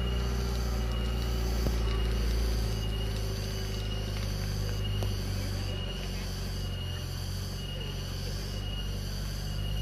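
Engine of a modified 1980s Toyota Land Cruiser Hardtop running steadily with a deep low hum. A short high chirp repeats a little more than once a second over it.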